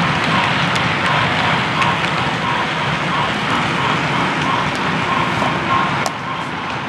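Model freight train rolling past on its track: a steady rumble and clatter of wheels on the rails, with a sharp click about six seconds in, after which the sound drops a little as the last car clears.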